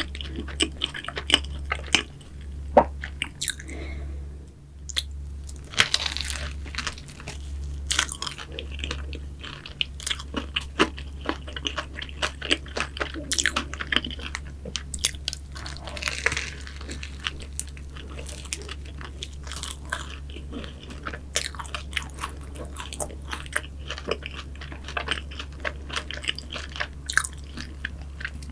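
Close-miked biting and chewing of pastries such as cruffins and financiers: many small sharp crackles in an irregular run, over a steady low hum.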